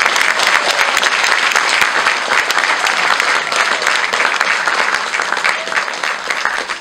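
Audience applauding, many hands clapping together in a dense, steady patter that tapers off near the end.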